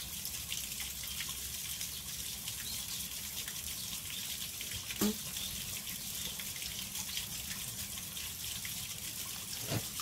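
Steady rush of running water in the background, with a short click about halfway through and another near the end.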